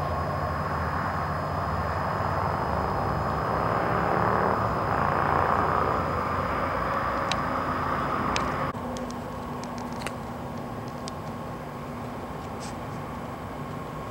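A DC-10 air tanker's jet engines running with a loud, even rush that swells about halfway through. The sound cuts off abruptly about two-thirds in and gives way to a quieter, steady engine hum.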